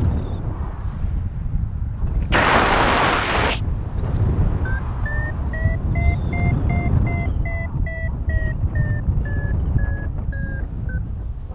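Paragliding variometer beeping in a quick train of short beeps, their pitch rising and then easing down, the sign of the glider climbing in lift. Wind rushes on the microphone throughout, and a burst of hiss lasting about a second comes shortly before the beeps.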